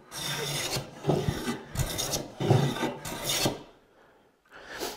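Hand-held jack plane with a cambered iron, stroked repeatedly along the edge of a hardwood board, each pass a rasping cut of a shaving. About four passes, then a pause of nearly a second near the end before the next begins.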